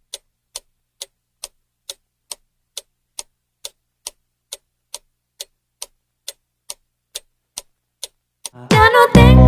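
Clock ticking sound effect, about two even ticks a second, timing the pause for guessing the pixelated song. Near the end it cuts off and a pop song with singing starts loud.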